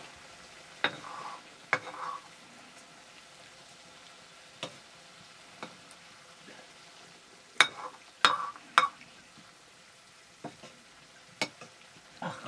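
Potato curry frying in a wok, a steady sizzle, with a metal ladle scraping and knocking against the pan as it is stirred every second or so, loudest in a run of three knocks a little past the middle.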